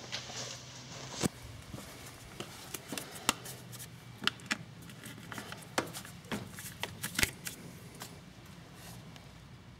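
Irregular sharp plastic clicks and knocks as a black plastic cover is handled and fitted over a car battery's terminal, the loudest about three seconds in and about seven seconds in.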